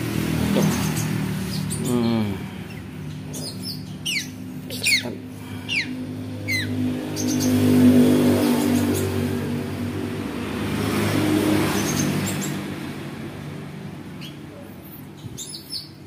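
A motor vehicle passing, its engine a low drone that swells and fades twice, with a handful of short, falling bird chirps between about four and seven seconds in.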